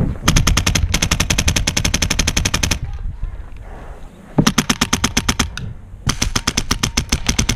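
Airsoft rifle firing in full auto: rapid, evenly spaced shots in three bursts, a long one of over two seconds, a shorter one about four seconds in, and another starting about six seconds in.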